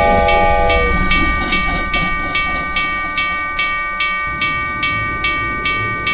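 Railway bell ringing steadily at about two and a half strikes a second, with a short chord whistle toot in the first second. The ringing fades slightly, then cuts off at the very end.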